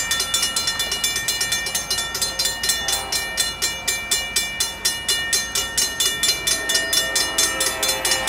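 Railroad grade-crossing warning bell ringing in a rapid, even rhythm of about four to five strikes a second, signalling that a train is approaching.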